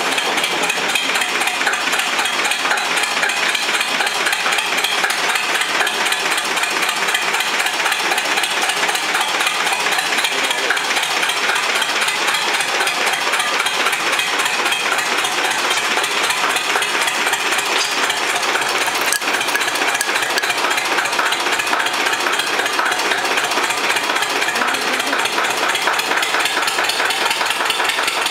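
Zetor 25 tractor's two-cylinder diesel engine running steadily, with a fast, even knock.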